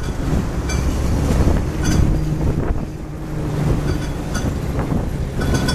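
WWII half-track's engine running with a steady low drone as the vehicle drives slowly past, with a few brief high squeaks.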